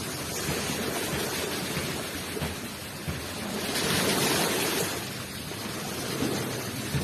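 Surf washing up onto a shore, a steady wash of water with one wave surging louder in the middle and then easing off.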